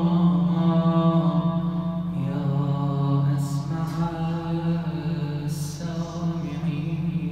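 A man's voice chanting an Arabic supplication (du'a) in a slow, ornamented melody, holding long notes and sliding between pitches, with a hissed consonant twice along the way.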